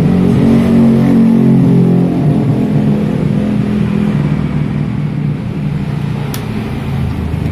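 A motor vehicle engine running close by, its pitch shifting slightly and easing off after a few seconds, with a single sharp click near the end.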